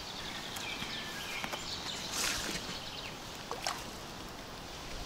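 Outdoor ambience: irregular rustling and crackling, loudest about two seconds in and again near three and a half seconds, over a faint chirping of insects.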